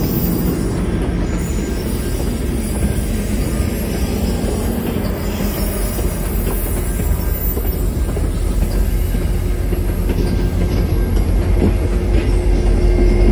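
MBTA commuter rail passenger coaches rolling past: a steady rumble of wheels on rail. A steady drone comes in and grows louder toward the end as the train's diesel locomotive draws near.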